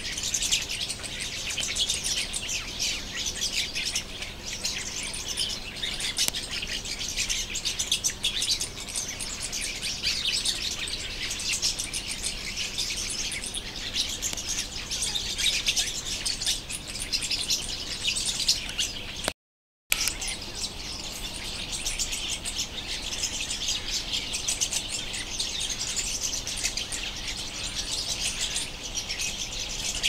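Many small birds chirping together in a tree, a dense, unbroken chatter of overlapping calls. The sound cuts out completely for about half a second some two-thirds of the way through, then resumes.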